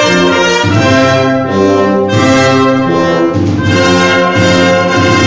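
Brass ensemble playing slow, full held chords that change about once a second.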